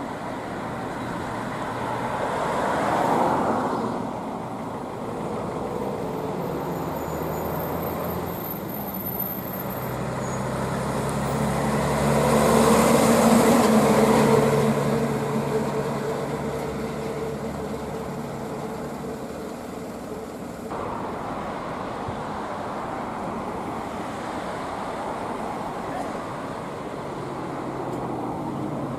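Diesel engine of a chrome-decorated dump truck driving past amid road traffic: a short swell about three seconds in, then the truck comes close and is loudest around thirteen seconds in before fading. Steady traffic noise fills the rest.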